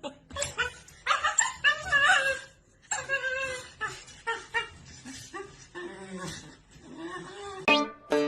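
A dog vocalizing in a run of wavering, whining calls that bend up and down in pitch, with short yips. Music starts near the end.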